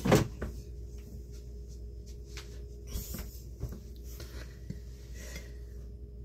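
Kitchen handling noises: one sharp knock right at the start, then faint scattered taps and rustles, over a steady faint hum.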